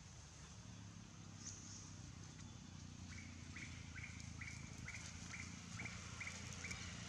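A bird calling a series of short, evenly spaced chirps, about two a second, starting about three seconds in, over a steady high-pitched drone and a low outdoor rumble.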